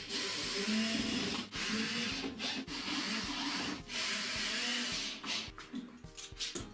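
Wood being sanded by hand: about four long rubbing strokes, each lasting roughly a second, with short pauses between them.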